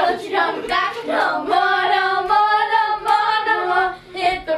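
Young girls singing together, holding a long, steady note through the middle, with a short break near the end.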